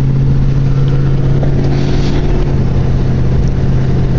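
Steady engine and road drone inside the cab of a moving truck: a constant low hum over rumbling road noise.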